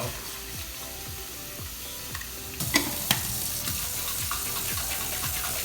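A tap is turned on a little over halfway through, with two sharp clicks, and water runs into a plastic coffee-machine water tank being rinsed out.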